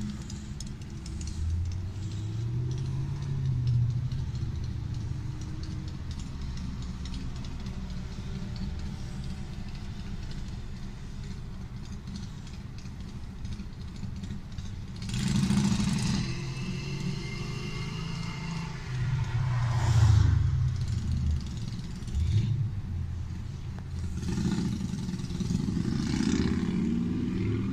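Road traffic heard from inside a car's cabin: a steady low engine hum, with other vehicles accelerating and passing several times, the loudest about twenty seconds in.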